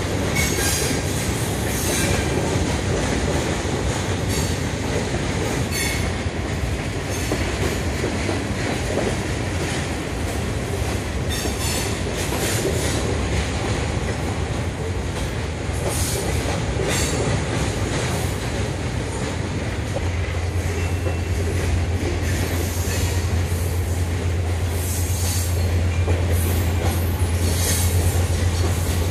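Covered hopper cars of a freight train rolling steadily past: a continuous rumble of steel wheels on rail, with scattered sharp clacks as wheels cross rail joints. The low rumble grows stronger about two-thirds of the way through.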